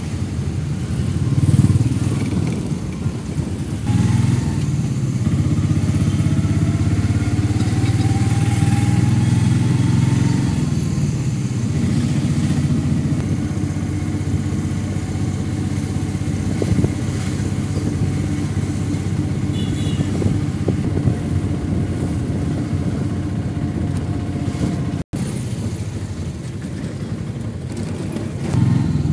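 Engine and road noise of a moving car, heard from inside the cabin, with street traffic around it. A few seconds in, the engine pitch rises as it accelerates.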